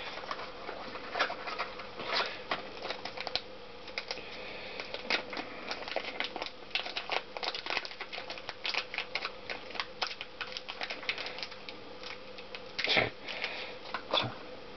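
A new water pump seal being unpacked by hand from its small box and clear plastic bag: many quick irregular crinkles, rustles and clicks, with a louder crinkle about 13 seconds in. A faint steady hum lies underneath.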